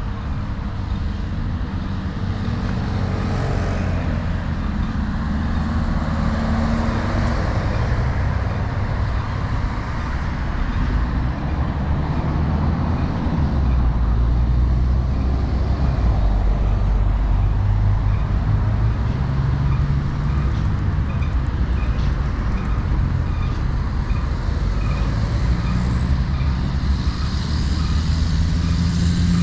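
Steady road traffic from passing cars: a deep, continuous engine and tyre rumble that grows a little louder about halfway through.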